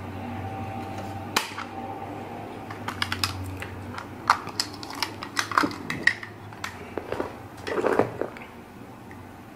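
Sharp plastic clicks and knocks of a clear waterproof action-camera housing being unlatched, opened and the camera pulled out, irregular and several in quick succession, with a cluster near the end. A steady low hum runs underneath.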